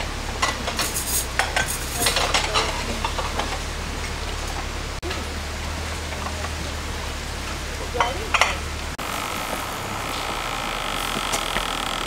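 Water splashing steadily from a pipe onto a small homemade waterwheel, with scattered clicks and knocks over the first few seconds and again near the end. About nine seconds in the sound changes to a different steady hiss.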